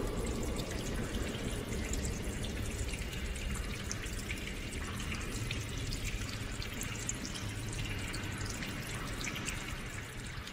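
Water dripping and trickling: many small drips over a steady wash of running water.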